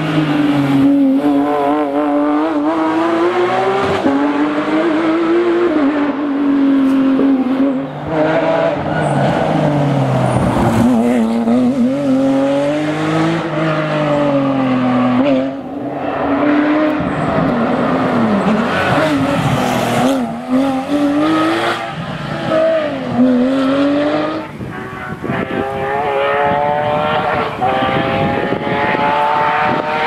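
Porsche 911 GT3 rally cars' flat-six engines at high revs on a stage, across several passes. The engine note climbs through the gears and drops on lifts and downshifts, over and over, with a long climb near the end.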